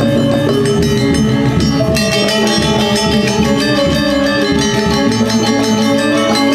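Balinese gamelan gong kebyar playing dance music: bronze metallophones ring out held notes over rapid, fast-running strokes.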